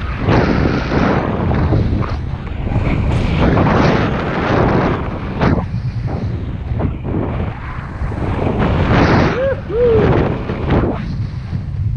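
Wind rushing over the camera microphone of a paraglider pilot in flight, loud and gusting in uneven surges. About three-quarters of the way through come two brief chirps that fall in pitch.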